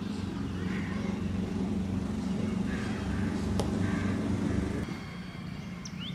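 A motor vehicle's engine running close by, a steady low hum that fades about five seconds in. About three and a half seconds in, a single sharp knock of a cricket bat striking the ball.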